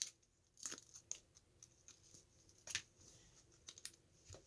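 Faint handling of a small plastic Kinder Joy toy and its packaging: a few sharp little clicks and crinkles spread through otherwise near-quiet room tone.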